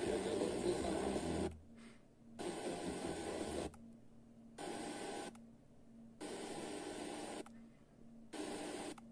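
Sony DAV-560 receiver's FM tuner stepping up the band one frequency at a time, giving five short stretches of hissy static reception, each cut off abruptly by a muted gap of about a second as it retunes.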